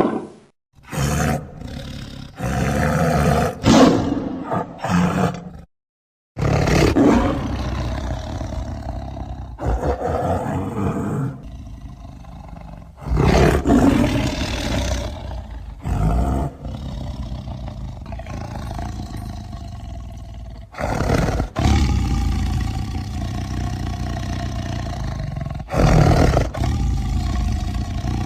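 Custom-made Hodag monster sound effects: a string of separate roars and growls, each starting and stopping abruptly, some about a second long and others several seconds long.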